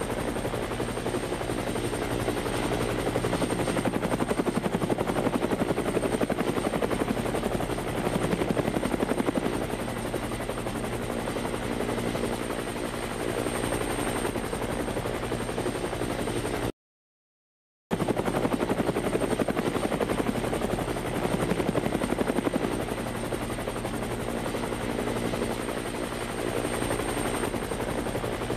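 Helicopter rotor running steadily: a fast, even chopping over a constant engine hum. It cuts out completely for about a second past the middle, then starts again.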